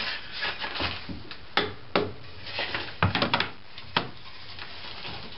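Light knocks on a wooden slat as it is tapped down into the grooves of a wooden screened bottom board: two single taps, then a quick run of several, then one more.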